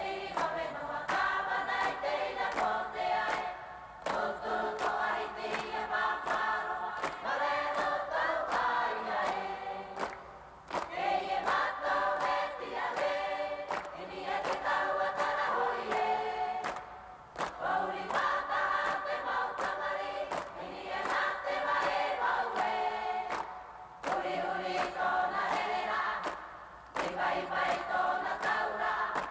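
Choir singing in a film soundtrack, played back from reel-to-reel tape, in long phrases with short breaks between them.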